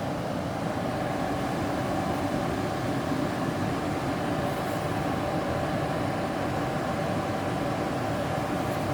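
Carrier gas furnace's blower fan running steadily, circulating air, as a constant rushing hum with a faint steady tone in it.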